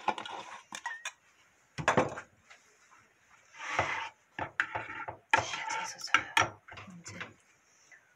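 A long metal spoon stirring thick red chili seasoning sauce in a small ceramic bowl, clinking and scraping against the bowl in irregular strokes, with a few sharper knocks of utensils and a jar on a wooden cutting board.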